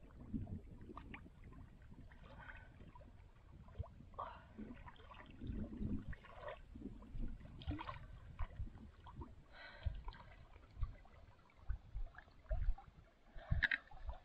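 Quiet water sloshing and splashing in irregular bursts, over low rumbling thumps.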